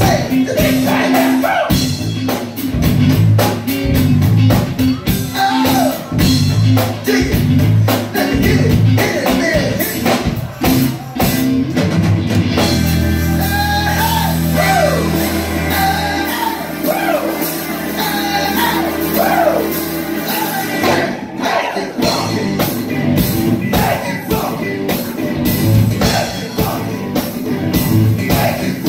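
Live band playing, with drum kit, electric bass, guitars and keyboards under singing. Past the middle, long held low notes carry under the vocals for several seconds before the full beat comes back.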